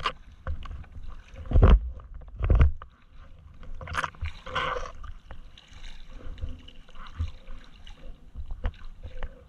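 Sea water splashing and slapping against a camera held at the waterline, in irregular bursts, with two low thuds about a second apart near the start.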